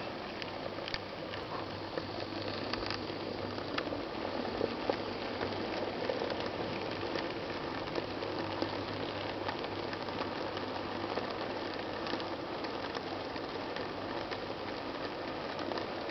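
N gauge model train rolling past: a Fleischmann BR24 steam locomotive and its freight wagons making a steady rattling whir, with many small clicks from the wheels on the track.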